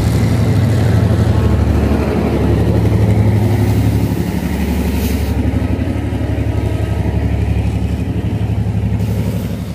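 Passenger train passing close by, with a diesel locomotive at its rear going past about four seconds in; its engine runs loud and steady, easing slightly as the train draws away.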